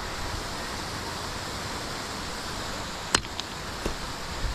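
Waterfall rushing steadily, with a single sharp click about three seconds in.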